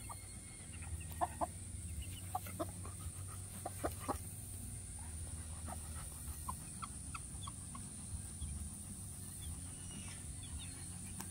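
Mother hen clucking in short, separate notes to her two-day-old chicks at the feed dish, most of them in the first few seconds, with a few faint higher chick peeps later on.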